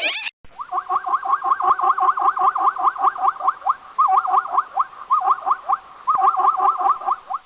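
An animal calling in a rapid, even run of short rising chirps, about seven a second.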